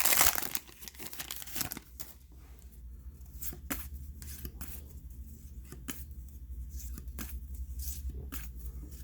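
Trading card pack wrapper torn open at the start, then the cards handled and flicked through one by one, giving scattered light snaps and rustles.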